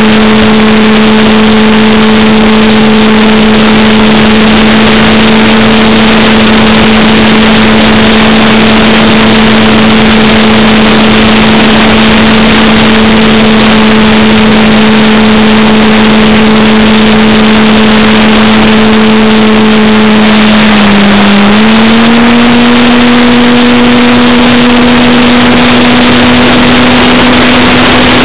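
Parkzone T-28 Trojan RC plane's electric motor and propeller, recorded from a camera on the plane: a steady, loud buzzing drone over a heavy rush of airflow noise. About three-quarters of the way through the pitch dips briefly, then holds a little higher than before, as the throttle is eased and opened again.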